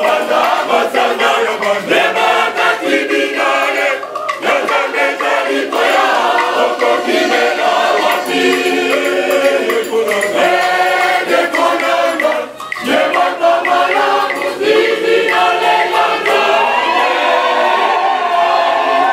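A choir singing together, with short breaks about four seconds in and again near the middle.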